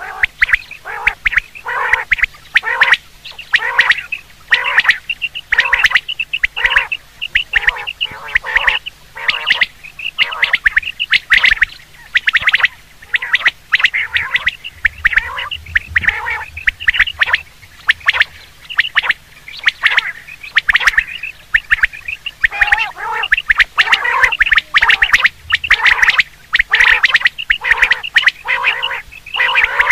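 Common quail calling over and over in quick, continuous repetition, each short call following close on the last, as played to lure quail when hunting.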